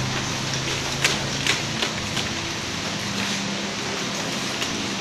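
Paper ballots rustling and crinkling as they are handled and unfolded, with a few sharp crackles in the first half, over a steady hiss of room noise.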